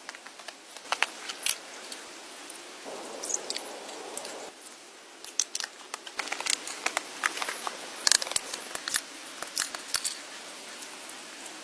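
Close-up handwork with natural materials: irregular sharp clicks and snaps with rustling, and a short scraping rustle about three seconds in.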